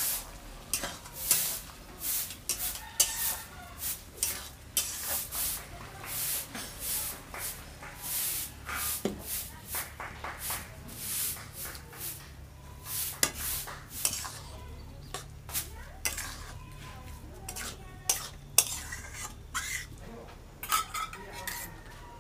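Steel spatula scraping and clinking against a steel kadai as thick mushroom gravy is stirred, a quick run of strokes. Later the strokes thin out to a few separate clinks of the spatula on the pan and a small steel bowl as the gravy is served.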